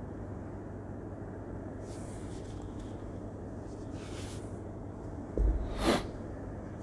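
A chrome dumbbell being set down on the gym floor: a low thud about five and a half seconds in, followed half a second later by a sharp metallic clack. Before it, only quiet room hiss with a couple of faint soft rustles.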